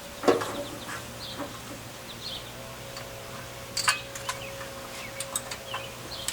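A few short bird chirps and scattered light clicks and knocks over a steady faint hum.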